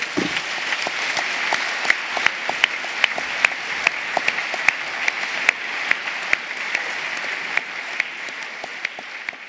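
Audience applauding steadily after a closing speech, a dense wash of many hands clapping with single claps standing out, beginning to ease off near the end.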